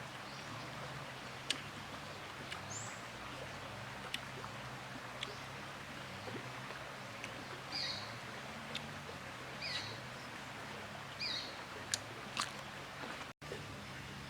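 Outdoor ambience with a steady hiss, a few short high bird chirps and scattered sharp clicks.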